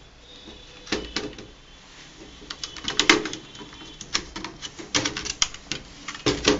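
Irregular clicks and knocks of a laptop hard drive being set into its bay in a Dell Inspiron 15R chassis and pressed home onto its connector, in several short clusters, the loudest about three seconds in.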